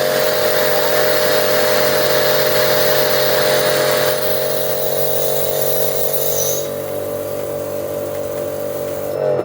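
Kärcher K5 pressure washer running while spraying from its lance: a steady motor and pump hum under the hiss of the high-pressure water jet. The hiss drops about four seconds in and again about six and a half seconds in, and everything stops abruptly at the end.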